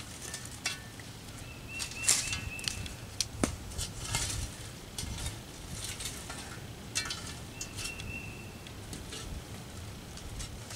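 Long-handled metal spade scraping and digging hot coals out of a fire pit: a run of irregular scrapes and crunches as the blade works into the embers.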